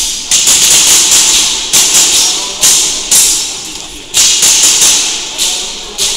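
KWA USP Match gas-blowback airsoft pistol firing a string of about ten shots, several in quick pairs. Each shot is a sharp crack that trails off quickly.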